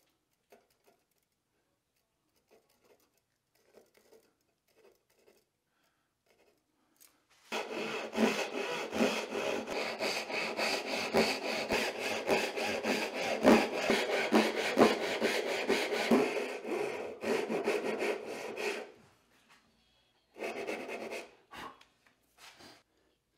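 Backsaw cutting dovetail tails into an alder board: quick, steady back-and-forth strokes of the blade through the wood for about eleven seconds, starting about a third of the way in, with one more short run of strokes near the end. Before the sawing there are only faint light ticks.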